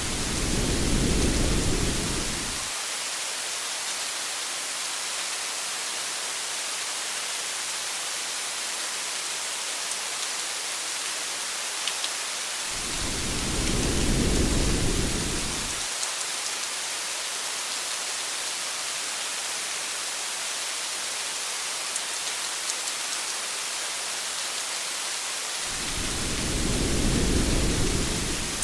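Steady rain hiss on a car, with low rolls of thunder three times, each about three seconds long, spaced about thirteen seconds apart.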